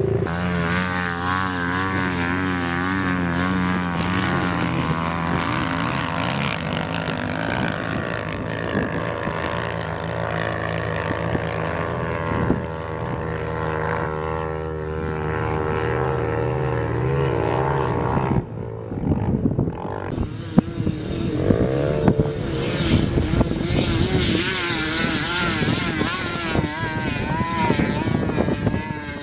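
Quad ATV engines revving up and down as the machines climb a sand dune, the pitch rising and falling with the throttle. After a short dip about two-thirds through, the engines carry on with rough, crackly noise over them.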